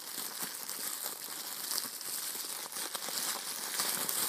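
Plastic bubble wrap crinkling and rustling as it is pulled off a bobblehead figure, a dense run of small crackles.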